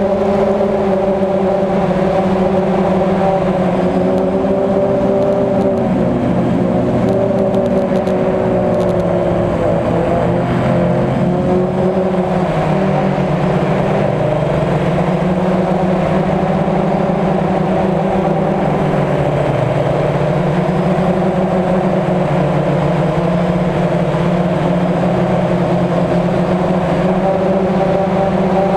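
DJI Phantom quadcopter's motors and propellers buzzing loudly in flight, heard close from a camera mounted on the drone. The buzz is steady and multi-toned, its pitch dipping and rising a few times as the throttle changes.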